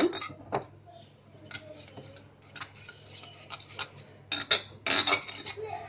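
Spoon clinking and scraping against a ceramic bowl while mashing thick curd smooth. A few scattered clicks at first, then quicker clinks from about four seconds in.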